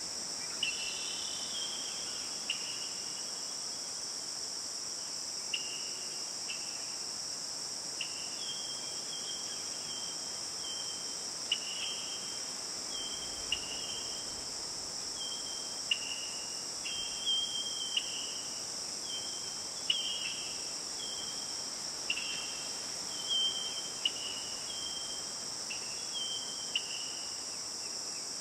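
A steady, high-pitched insect chorus, typical of crickets, runs through a natural forest soundscape. Over it come short chirps, scattered at first and then recurring about once a second.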